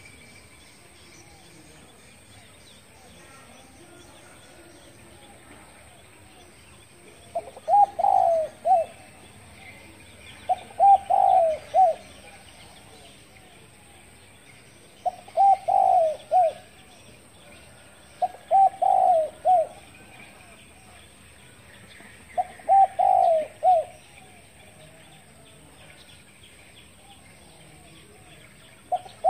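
Spotted dove cooing: five phrases of a few low notes each, the first about seven seconds in, then one every three to four seconds.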